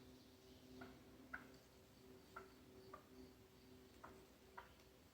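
Faint, short calls in pairs, repeating about every second, from a wild turkey hen calling to her chicks.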